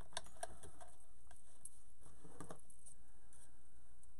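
Fabric ribbon being handled by hand: soft rustling with a few faint clicks, a small cluster of them about two and a half seconds in.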